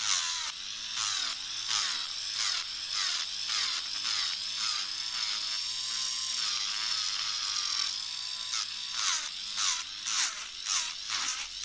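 Electric nail drill spinning a ceramic bit against an acrylic nail to take it off: a high motor whine that dips and wavers as the bit loads on the nail, with short scraping strokes that come more often in the last few seconds.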